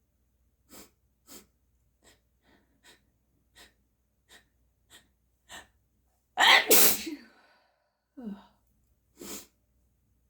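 A person's sneeze building up: a run of short, quick catching breaths, then one loud sneeze about six and a half seconds in, followed by two shorter breaths.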